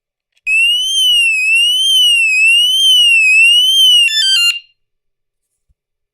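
BANGTING anti-theft bike alarm siren sounding loudly, a high electronic tone sweeping up and down about once a second for about three and a half seconds. It ends in a quick run of stepped beeps, then cuts off.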